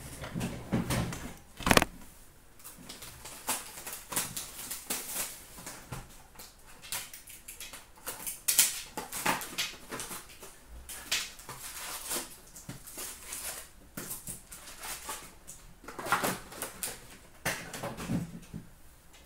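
Hands opening a sealed box of hockey cards and pulling out the packs: plastic wrap crinkling, packs rustling and cardboard tapping in irregular bursts, with a sharp knock just before two seconds in.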